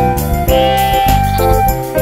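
Bright, tinkling background music with a steady beat, and a sheep bleating once, briefly, about half a second in.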